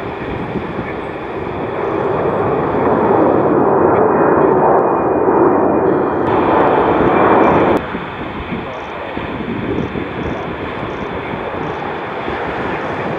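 Jet engines of a twin-engine airliner at takeoff power on climb-out, growing louder as it passes nearly overhead. The sound cuts off suddenly about eight seconds in and gives way to quieter, steady jet noise from another departing twin-engine airliner.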